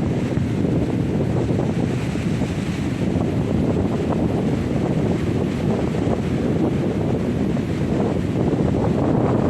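Strong monsoon wind buffeting the microphone in a steady low rumble, over the wash of rough surf breaking on the beach.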